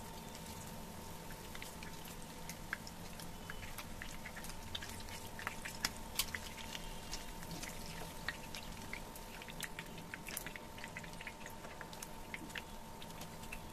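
Chicken pieces frying in shallow oil in a pan: a crackle of small pops and spits from the hot oil, busiest around the middle, over a steady hum.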